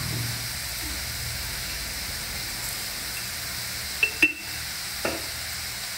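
Tomato and brinjal pieces frying softly in a steel kadai over a steady low hum, with two sharp clinks with a short ring about four seconds in as salt goes in.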